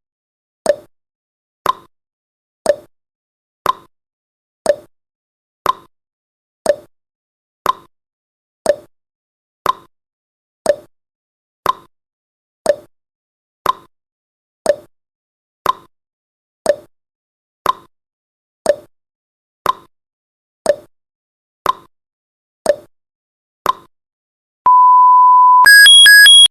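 Countdown timer sound effect: a clock tick-tock once a second, the clicks alternating lower and higher, until near the end. A steady beep for about a second then marks zero, followed by a louder, higher-pitched alarm beeping rapidly.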